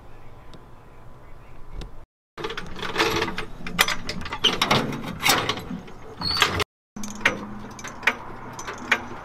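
Metallic clicking and clanking of mechanical work under a pickup truck, in quick runs of sharp clicks with a brief squeak. The sound cuts out completely twice for a moment.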